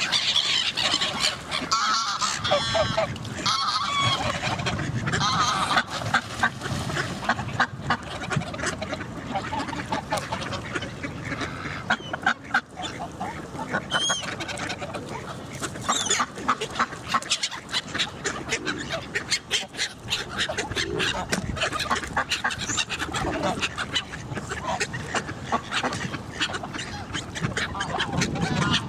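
A flock of geese and ducks calling, with honks and quacks overlapping in quick succession.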